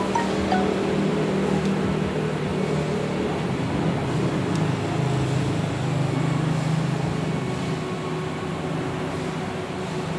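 Steady machinery hum in a metal workshop, with a low drone that shifts in pitch partway through.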